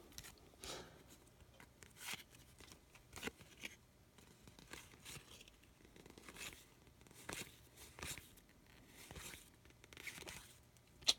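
Trading cards being handled and shuffled through: faint, irregular soft swishes and scrapes of card stock, one every second or so.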